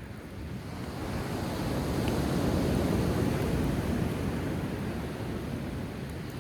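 A sea wave breaking and washing up the shore. Its rushing noise swells to a peak about halfway through and fades away near the end.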